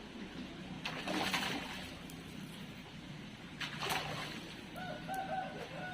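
A rooster crowing, a single held call with a stepped pitch near the end, over a faint steady background. Two brief noisy bursts come earlier, about one and four seconds in.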